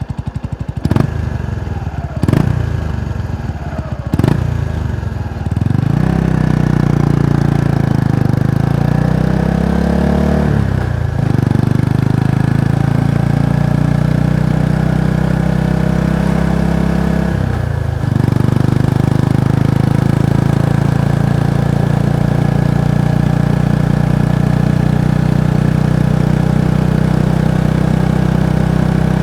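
Kawasaki Estrella's single-cylinder engine and exhaust, with a few sharp knocks over the idle at first. It then pulls away and accelerates, dips briefly twice at gear changes, and runs steadily.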